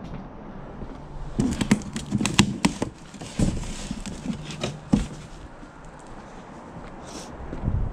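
Small objects being rummaged through and handled in a box: a quick run of light clicks and clatters about a second and a half in, with rustling, then a few single knocks.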